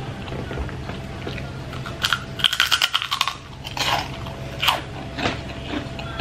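A crisp puffed kerupuk cracker being bitten and chewed: a burst of crackly crunching about two seconds in, followed by a few separate crunches as it is chewed.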